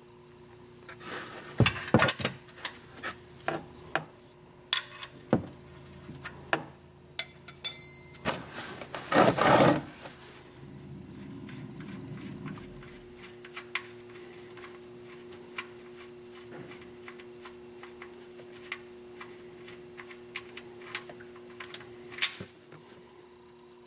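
Clicks, scrapes and rubbing of a hand unthreading a loosened 17 mm oil drain plug from the underside of a car, over a faint steady hum. The clicks are busiest in the first half, with a louder rustle about nine seconds in.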